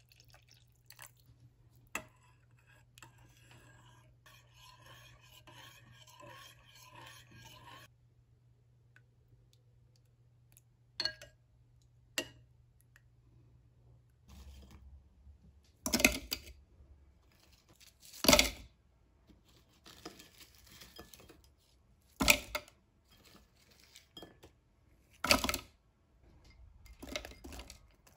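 Water poured in a thin stream into a bowl of liquid sauce, trickling for about eight seconds. After a pause come a couple of light clicks, then four sharp, loud knocks a few seconds apart with softer clatter between them, as a ladle works against the dish.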